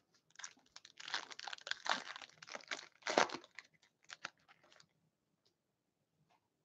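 Foil wrapper of a hockey card pack crinkling and tearing as it is opened and the cards are pulled out, a dense crackle that dies away after about five seconds.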